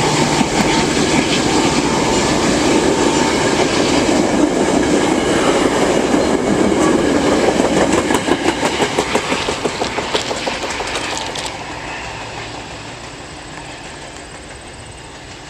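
Metra commuter train of stainless-steel bilevel gallery cars passing close by, with a steady rumble of wheels on rail. Rapid wheel clicks come as the last cars go by, about eight to eleven seconds in, then the sound fades as the train pulls away.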